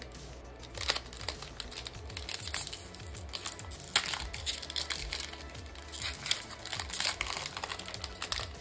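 Foil booster pack wrapper crinkling and crackling as it is handled and torn open, with sharp crackles about a second in, at about four seconds and around six to seven seconds. Quiet background music plays underneath.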